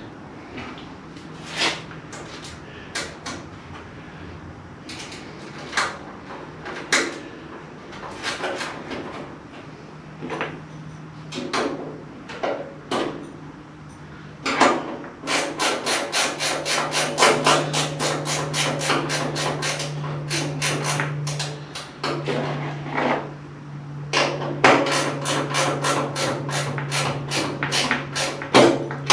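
Light knocks, then quick repeated tapping on the steel cowl of a 1929 Ford Model A pickup, about four to five taps a second, as a rubber/plastic filler strip is driven into the cowl seam. The taps come in two runs with a short break between them.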